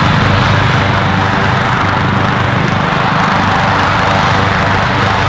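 State police helicopter sitting on the ground with its engine running and rotors turning, giving a loud, steady rotor and engine noise.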